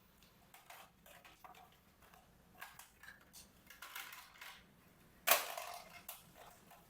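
Scattered light clicks, taps and rustles of small things being handled, with one sharper, louder clatter a little after five seconds in.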